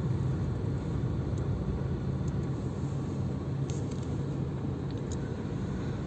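Steady low engine and road rumble of a car, heard from inside its cabin as it drives.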